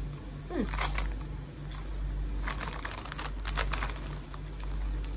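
Doritos tortilla chips crunching as they are chewed, mixed with the crinkle of the chip bag being handled, in irregular clusters about a second in and again around the three-second mark.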